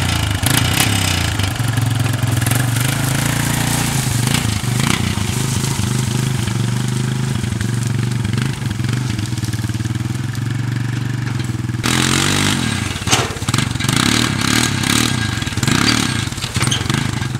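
Honda ATV engine running steadily, then revving up and down about two-thirds of the way through as it pulls a trailer loaded with logs, with clattering from the trailer and load.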